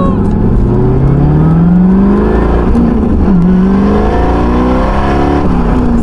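1993 Chevrolet Corvette's V8 engine accelerating under way: its pitch climbs for about two seconds, drops with a gear change, then climbs again. Heard from the open-top cabin with road and wind noise underneath.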